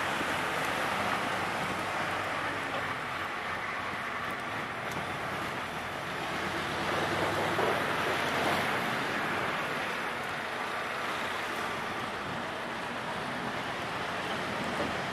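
JCB Loadall 541-70 telehandler's diesel engine working as it scoops soil with its bucket, a steady rumbling noise that swells briefly about halfway through as the loaded boom is raised.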